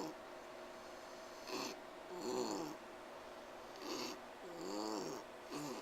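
Pot-bellied pig wheezing as it tries to sleep. Each breath is a short snuffle followed by a whistling wheeze that rises and falls in pitch, repeating about every two and a half seconds.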